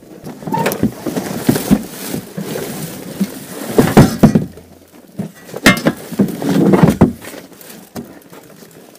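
Ice-fishing gear being unloaded from a car boot: irregular knocks and thumps of boxes and bags being lifted out against the boot floor, with rustling and a few clinks. The loudest knocks come about four and six seconds in.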